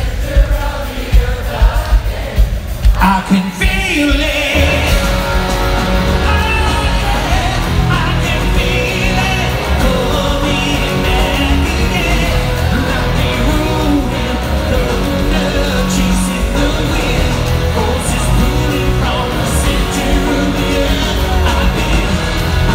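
Rock band playing live through a concert PA, with a male lead singer. A few sharp, loud beats for the first three seconds or so, then the full band and vocals come in about four seconds in and carry on at a steady loud level.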